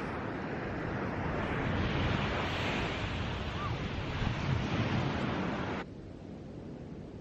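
Surf washing on a beach, with wind buffeting the microphone. About six seconds in it drops abruptly to a quieter, duller rush.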